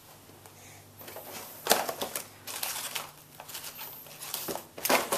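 Cardboard tea box being opened and a paper-wrapped tea bag pulled out of it: irregular rustling and crinkling of card and paper, with sharper crackles about two seconds in and again near the end.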